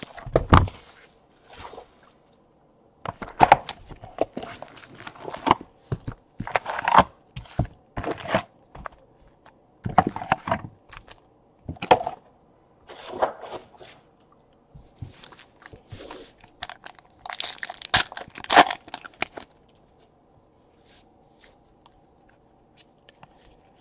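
Wrapping and foil card packs crinkling and tearing as a box of Donruss baseball cards is opened and its packs handled: scattered short rustles and tears with a thump about half a second in. The handling is busiest shortly before the end and falls quiet in the last few seconds.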